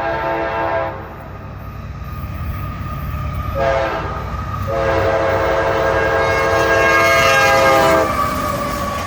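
Freight locomotive's multi-tone air horn sounding for a grade crossing: a long blast ends about a second in, then comes a short blast and a long blast, the end of the long-long-short-long crossing signal. Under it the rumble of the approaching train grows louder.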